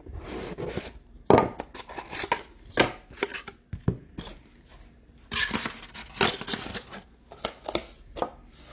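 Trading cards and card packs handled on a tabletop: a run of sharp taps and clicks, with a longer rustle starting about five seconds in.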